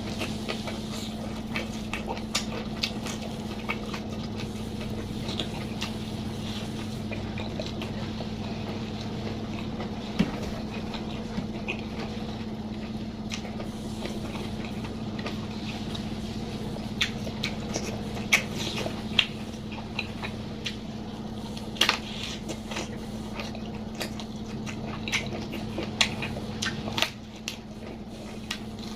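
Close-up eating sounds: a person chewing and crunching food, with scattered sharp crunches and wet clicks of the mouth, over a steady low hum.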